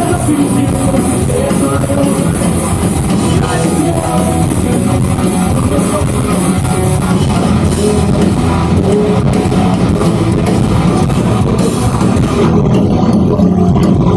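Live rock band playing loud, with guitar and drum kit, no singing.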